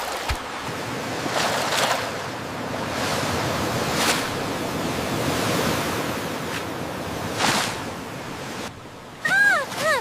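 Ocean surf, with waves washing in and breaking several times in slow swells. Near the end comes a quick run of short, high cries that rise and fall in pitch.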